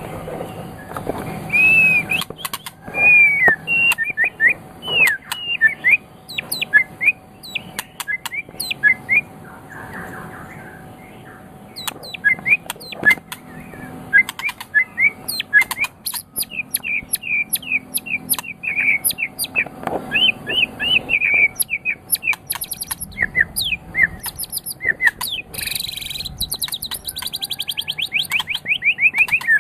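White-rumped shama (murai batu, Medan type) singing continuously: a varied song of quick sweeping whistled notes, sharp chips and clicks. Near the end comes a short harsh burst, then a fast run of repeated notes.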